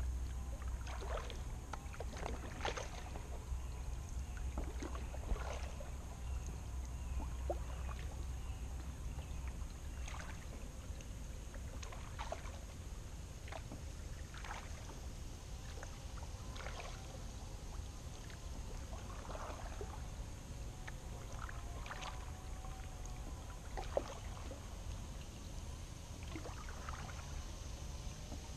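Kayak paddle strokes on calm water: the blades dip in and drip, giving soft irregular splashes every second or two. A low rumble sits under the first several seconds.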